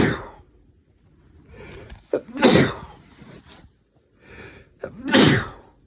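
A man with a cold in a sneezing fit: the tail of one sneeze, then two more full sneezes about two and a half seconds apart. Each sneeze is preceded by a short noisy inhale.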